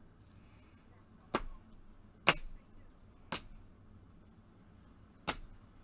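Hard plastic card cases clacking together, four sharp clicks about a second apart, as they are handled one after another.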